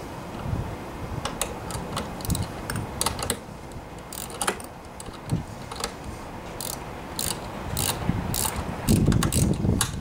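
Ratcheting wrench clicking in short, irregular runs as it drives a self-tapping screw into a plastic cable bracket. Louder knocks of handling come near the end.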